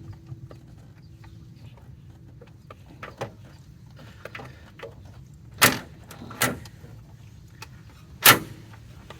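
Hand work on a car's front steering bolts: scattered light metal clicks, then three sharp knocks, the loudest near the end, as tools and a socket clank against the suspension.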